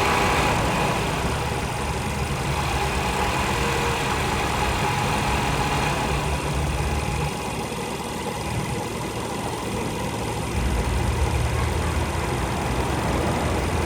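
2012 Volkswagen Jetta's turbocharged 1.2 TSI petrol engine running with a low drone, which fades about seven seconds in and returns about three seconds later. The owner reports a droning, rubbing-like noise from about 1,100 rpm up that goes away at idle and when the clutch is pressed.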